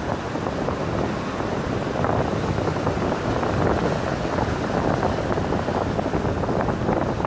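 Waves breaking and surf washing up a pebble beach, with wind buffeting the microphone; a steady, fluctuating rush with no distinct strokes.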